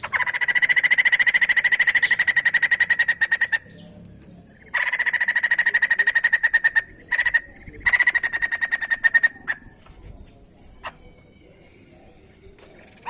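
White-crested laughingthrush (poksay jambul) giving a rapid rattling chatter in four bursts, each a fast run of evenly repeated notes at a steady pitch. The bursts come in the first nine seconds, with only faint sounds after.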